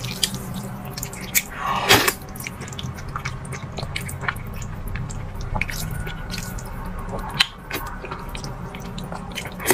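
Close-miked slurping and chewing of sesame-paste-coated glass noodles, with irregular wet smacking and clicking mouth sounds. The loudest slurp comes about two seconds in.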